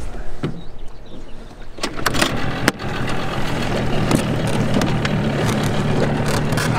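An engine starts about two seconds in and then runs steadily at idle, with a few clicks before it catches.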